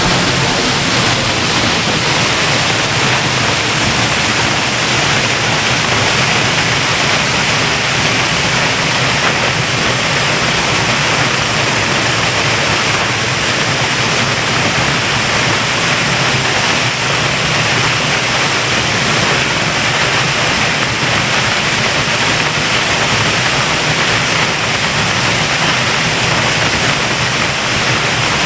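Eas Mor waterfall in spate after torrential rain, a heavy volume of water falling about 100 feet, picked up by a handheld microphone pointed at the falls. It makes a loud, steady, unbroken rush of falling water.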